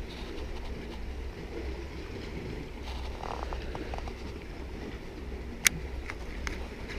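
Steady low rumble of wind on the microphone over the open sea, with a few faint ticks and one sharp click about five and a half seconds in as the baitcasting rod and reel are handled.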